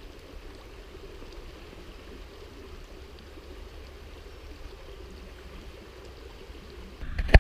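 Small woodland river running steadily over a shallow stony bed, a soft even rushing. Near the end it cuts to a louder low rumble with one sharp knock.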